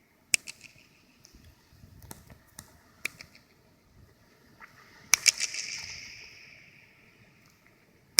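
Sharp impacts inside a large hollow sphere, each followed by a ringing, fluttering echo. The loudest pair comes about five seconds in and its echo fades over about two seconds. A few lighter clicks come earlier.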